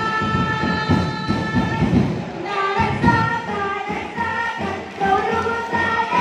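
Music with a group of voices singing a held melody over a dense drum beat.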